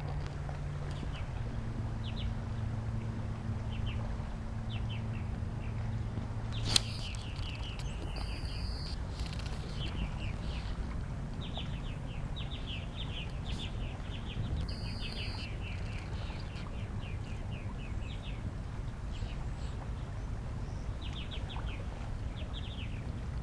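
Small birds calling in quick chattering bursts of rapid high notes, one burst every second or so, over a steady low background hum. A single sharp click about seven seconds in.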